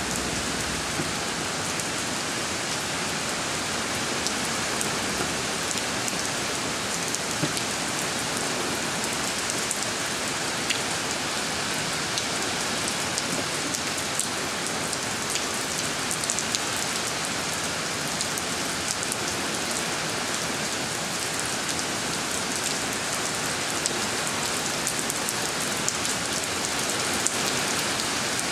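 Steady rain falling on a wet concrete driveway and puddles, a constant hiss with many small drop ticks scattered through it.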